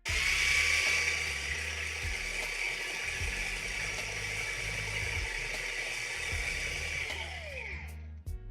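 Small electric drill running at steady speed with a high whine, then winding down with a falling pitch once released, a little before the end.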